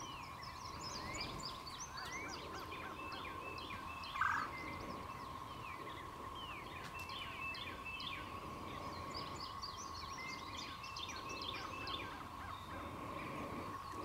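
Steady, even drone of a distant periodical cicada chorus, with many short bird chirps scattered over it and one louder short call about four seconds in.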